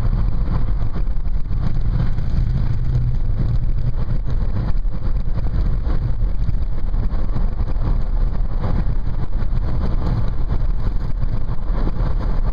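Steady rumble of a car driving on the road, heard from inside the cabin, with strong wind blowing against it.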